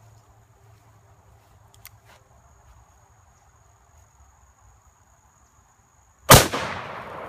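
A single shot from a Smith & Wesson Model 500 revolver in .500 S&W Magnum, very loud and sudden, about six seconds in, followed by a long fading echo. Before the shot there is only a faint steady background.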